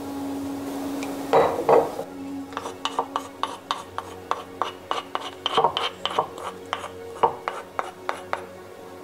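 Metal spoon working against a wooden pestle and mortar: two louder knocks about a second and a half in, then a quick run of light clicks and scrapes, about three or four a second.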